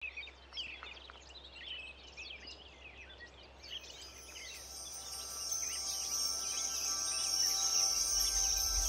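Small birds chirping in quick short calls; from about four seconds in, a steady high insect trill and soft held music notes fade in and grow louder.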